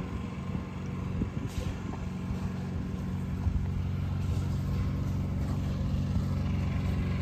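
Small garden tractor engine running steadily, a low even hum that grows slightly louder over the last few seconds.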